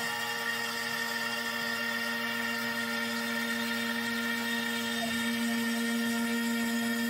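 Trim router serving as a CNC spindle, running with a steady whine while a quarter-inch upcut bit cuts a shallow 1/16-inch pass through MDF. The whine grows slightly louder about five seconds in.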